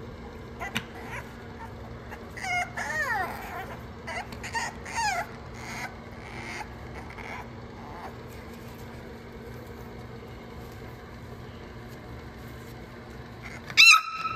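French bulldog puppy whining and yipping: a string of short, high-pitched cries that fall in pitch, bunched together a couple of seconds in, then a louder high squeal near the end. A steady low hum runs underneath.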